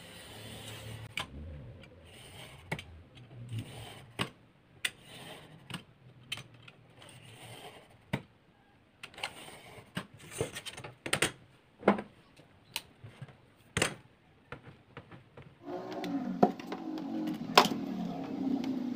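Utility knife scoring and cutting a white sheet along a steel ruler on a wooden board: a run of short scraping strokes and sharp clicks at irregular intervals.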